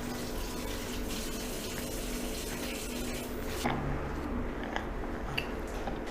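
Water running steadily for about three and a half seconds, then stopping, followed by a few light clicks and knocks.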